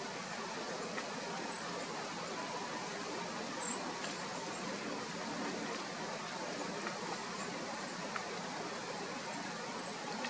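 Steady outdoor background hiss, even and unchanging, with a few faint, brief ticks scattered through it.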